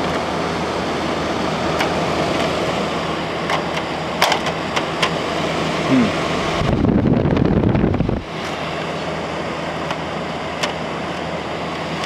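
General Electric 8000 BTU window air conditioner running with a steady fan noise, with sharp plastic clicks and knocks as its front grille is handled. About six and a half seconds in, a louder rumbling rustle lasts about a second and a half.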